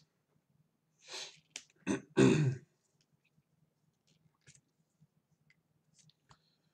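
A person clearing their throat: a short breath about a second in, then a rough, loud throat-clearing burst just past two seconds. Faint small clicks follow.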